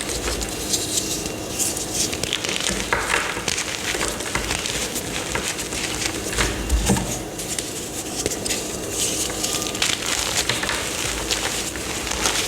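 Gym chalk being crushed and crumbled, a dense, irregular run of crunches and crackles.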